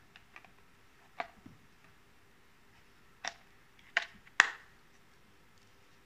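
Sharp plastic clicks and knocks as the mop pad plate is unhooked from the clear water tank of a Xiaomi Mi Robot Vacuum Mop Essential G1: one click about a second in, then three more between three and four and a half seconds in, the last the loudest.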